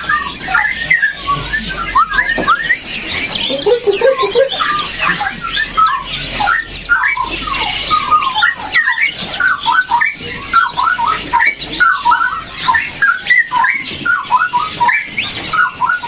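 Caged songbirds chirping and chattering, with many short, quick calls overlapping throughout and a lower burst of calls about four seconds in.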